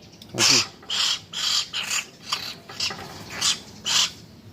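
Hill myna chick giving short, harsh, raspy begging squawks, about two a second, calling for more food as it is fed.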